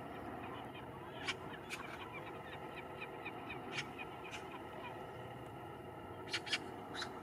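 A mixed flock of crows and gulls on river ice calling: short sharp calls every second or two, two in quick succession about six seconds in, with faint small chirps in between, over a steady background noise.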